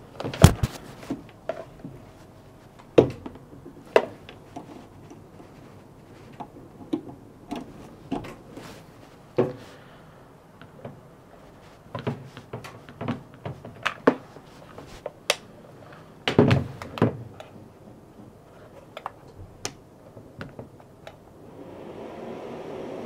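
Irregular knocks, thunks and clicks of equipment being handled, about one a second. About a second and a half before the end, a steady hum starts up.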